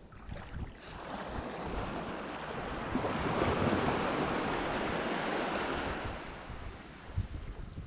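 A small wave breaking and washing up a sandy shore: the rush of surf swells from about a second in, is loudest around the middle, then dies away near the end.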